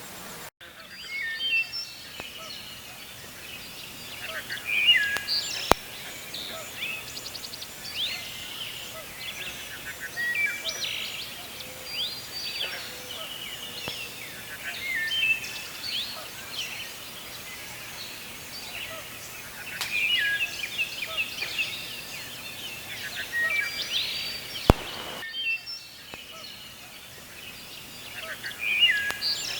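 Several wild birds chirping and singing, many short calls and trills overlapping throughout, over a steady outdoor background hiss; two sharp clicks stand out, one about six seconds in and one near the end.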